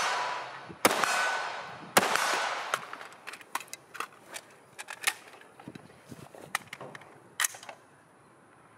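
Two rifle shots from a WWSD ultralight AR-15 carbine in 5.56, about a second apart, each echoing away over a second or so. They are followed by a scattered run of sharper metallic clicks and clacks over the next several seconds, the handling noise of a magazine change.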